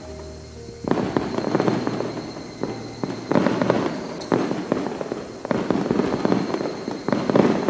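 Several bursts of dense crackling and popping, starting about a second in, over a faint high steady tone.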